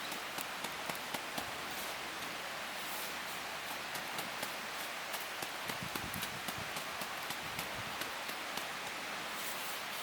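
Open wood fire crackling, with many sharp pops over a steady hiss.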